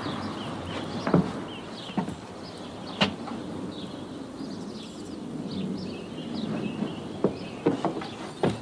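Outdoor street ambience: birds chirping over a steady background hiss, with a handful of sharp, irregularly spaced knocks.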